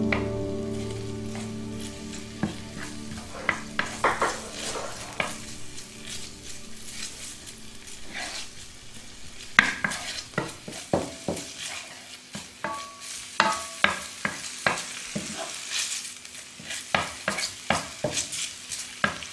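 Diced bacon frying in a skillet, sizzling faintly while a spatula stirs it, with many short scrapes and taps of the spatula on the pan.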